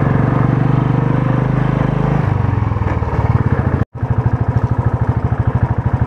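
A vehicle engine running steadily with a rapid, even pulse. The sound cuts out for an instant just before four seconds in, then the same engine carries on.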